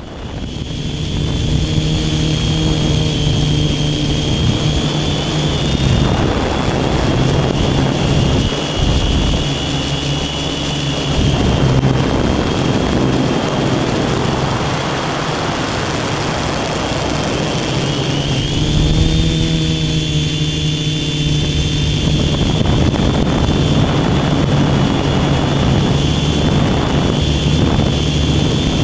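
Electric motors and propellers of an RC multirotor heard from its onboard camera in flight: a steady hum that shifts in pitch as the throttle changes. Wind rushing over the microphone swells and fades throughout.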